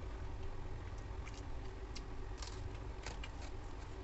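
Eating by hand from a steel plate: a handful of small, soft clicks and smacks from fingers working rice and from chewing, over a steady low hum.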